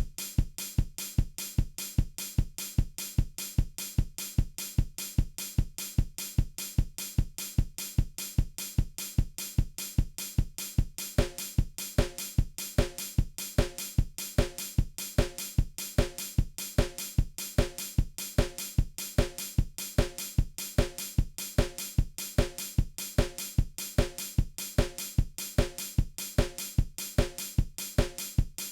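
Steady drum-kit beat with kick drum, snare and hi-hat keeping an even tempo. About eleven seconds in, another part fills in the middle of the sound over the beat.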